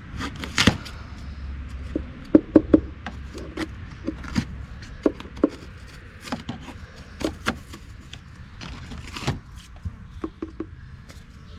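Screwdriver prying and scraping at a cut-out plug of siding and wood to pop it free: irregular knocks, clicks and scrapes, with a cluster of sharper knocks a couple of seconds in.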